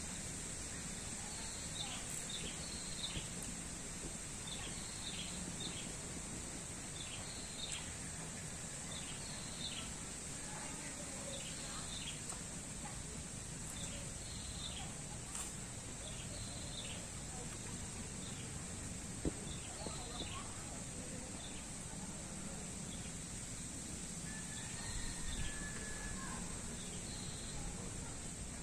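Outdoor ambience: a steady hiss with a constant high-pitched drone, over which a bird calls in short groups of high chirps every second or two.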